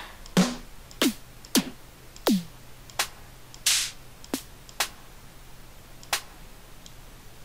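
Snare drum samples previewed one after another in FL Studio's sample browser: about nine single electronic snare hits, unevenly spaced, several with a falling thump, the last about six seconds in.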